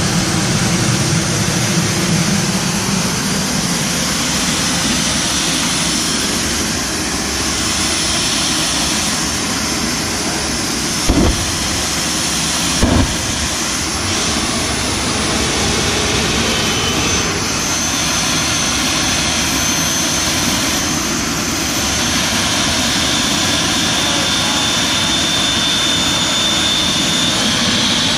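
Jet engine running steadily at idle: a constant loud rush with a high whine over it. Two brief thumps near the middle, a second and a half apart, stand out above it.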